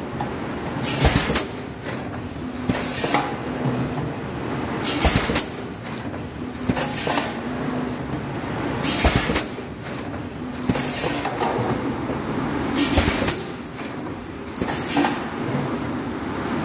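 PET bottle stretch blow-moulding machine running through its cycle: a short hiss burst with a knock about every two seconds, over a steady machine hum.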